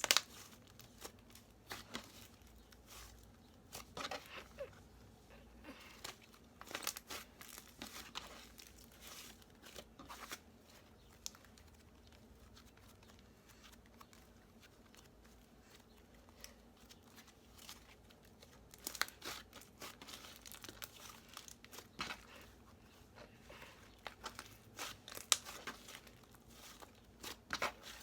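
Soft inflatable butter slime being stretched, squeezed and poked, giving faint crackles and small pops as air pockets in it burst. The crackles come in clusters with quieter stretches between.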